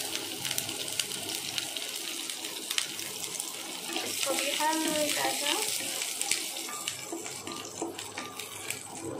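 Chopped green chillies, garlic and cumin sizzling in hot oil in a frying pan, a steady hiss with fine crackles. A short bit of a voice is heard about halfway through.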